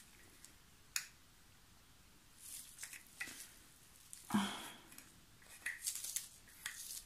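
Scattered light clicks and scrapes of pigment powder being stirred into epoxy resin that has turned thick, with the loudest scrape a little past the middle and a quick run of clicks near the end.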